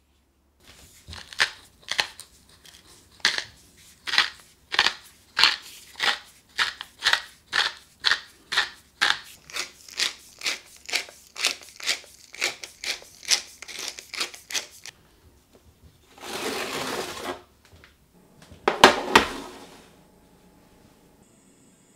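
Wooden pepper mill grinding peppercorns: a crunchy grinding twist repeated about twenty times, roughly one and a half a second, for some fifteen seconds. It is followed by a short rustling hiss and then a couple of loud knocks near the end.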